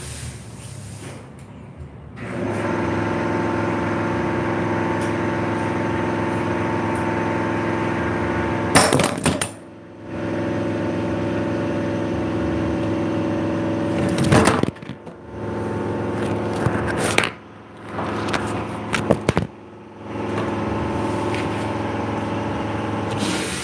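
A steady, pitched mechanical hum that cuts out and starts again four times, with clattering knocks and scrapes at the breaks, the loudest about nine and fourteen seconds in.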